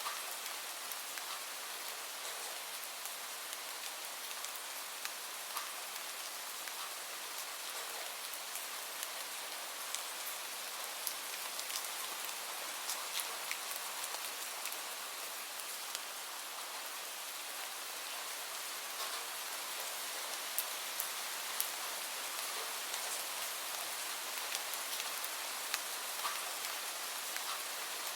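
Steady rain falling, an even hiss with individual drops ticking sharply here and there.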